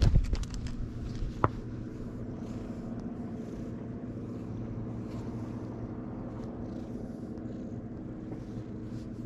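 A steady low engine-like drone runs throughout. In the first second there is a burst of rustling and clicks from handling close to the microphone, and a single sharp click comes about a second and a half in.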